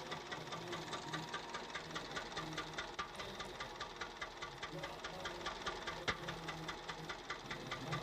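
Honda Civic Hybrid engine idling with a rapid, even ticking from the valvetrain, one sharper click about six seconds in. The tappets have been checked and found fine; the uploader puts the noise down to the rocker arms, and the car logs the valve pause system sticking on, low rocker-arm oil pressure and random misfires.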